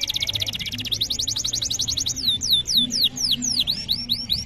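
Domestic canary singing: a fast trill of rapid, evenly repeated high notes, which about two seconds in gives way to a slower run of downward-sliding whistled notes, about four a second.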